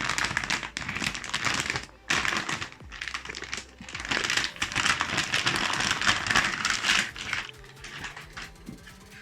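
Plastic packaging crinkling and rustling as a graphics card is unboxed by hand, in uneven bursts with short breaks, dying down near the end.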